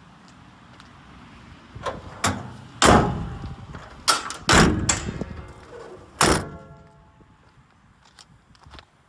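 Metal compartment doors of a Rawson-Koenig utility truck body being handled and shut: about six clanks and bangs over some four seconds, the loudest about three seconds in. The last bang is followed by a brief metallic ringing.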